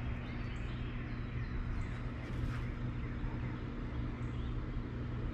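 A steady low hum with faint, short bird chirps over it.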